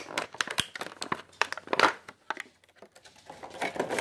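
Clear plastic toy packaging crinkling and crackling as it is handled to get a figure out, in quick irregular crackles with a louder crinkle just under two seconds in.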